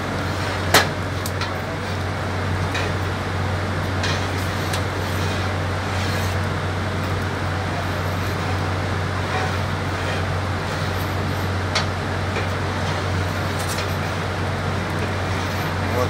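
Steady low drone of solid-fuel steam boiler plant machinery, a fan-like hum under a constant rushing noise. A few sharp clicks and knocks from a shovel working at the open firebox, the loudest about a second in.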